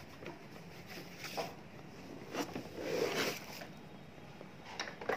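Quiet handling noises: faint rustling with a few soft clicks and a dull knock about three seconds in.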